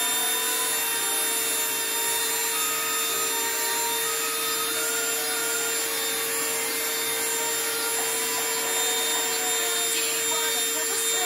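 Small electric drill with a diamond bit running steadily at one pitch, grinding a hole into a piece of sea glass.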